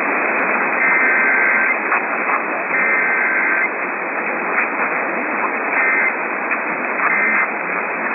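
Emergency Alert System SAME data bursts, the buzzing two-tone digital code, received over radio through heavy static hiss. Two longer bursts (the header) come about a second and three seconds in, followed by two shorter bursts near the end, typical of the end-of-message code.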